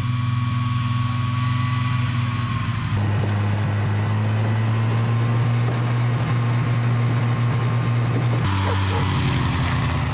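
Snowmobile engine running steadily while it tows over snow. The sound shifts abruptly about three seconds in and again near the end, where a hiss of track and snow grows louder.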